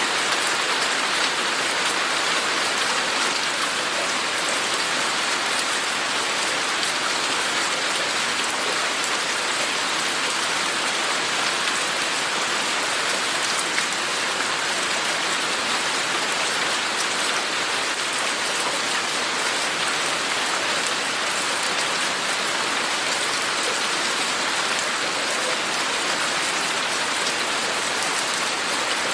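Steady rain falling, a dense even hiss with many fine drop ticks, unchanging throughout.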